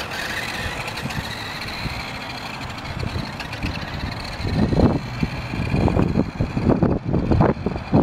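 Electric motor and gears of a Velocity Toys Speed Wagon 6x6 RC truck whining as it drives away, the pitch sinking slightly and the whine fading over the first few seconds. From about halfway on, irregular low rumbling bursts are the loudest sound.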